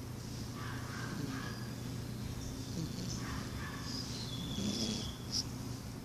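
Two-month-old puppy snoring in its sleep: a breath every couple of seconds, one of them with a thin whistle, and a short click about five seconds in.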